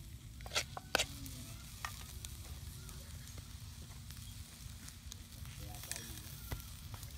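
Tiny baby lobsters frying with garlic in a steel wok over a wood fire, a steady sizzle. Two sharp clicks come near the start, and a few fainter ones follow.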